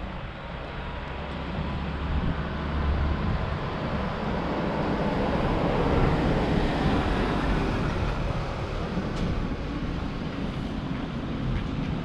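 A car passing on the street, its tyre and engine noise swelling to its loudest about six seconds in and then fading.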